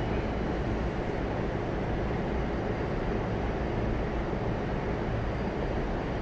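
Steady hum and rumble inside an E233 series commuter train car standing still at a station, with no event standing out.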